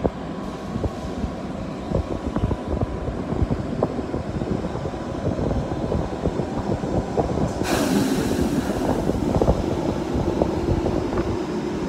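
Container freight train's wagons rolling past, with a steady rumble and irregular knocks and clicks from the wheels. About eight seconds in, a sudden hiss sets in, and a steady tone joins the rumble.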